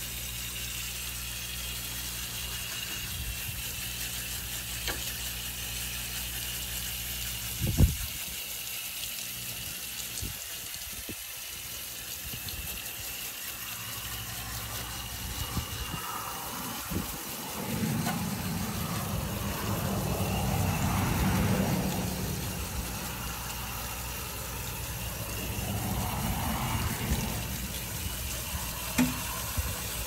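Garden hose spraying water through an air conditioner's outdoor condenser coil to wash dirt and debris out of the fins, with thumb over the hose end rather than a nozzle. The spray gets louder and splashier in the second half, over a steady low hum in the first half, with one sharp thump about eight seconds in.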